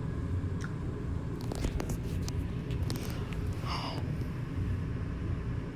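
Phone microphone handling noise: a steady low rumble with scattered light scrapes and clicks as the phone is held close and moved against bedding.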